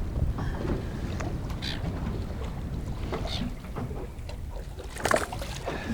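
Wind buffeting the microphone with water lapping around a small boat, a steady low rumble. A short, sharper noise stands out about five seconds in.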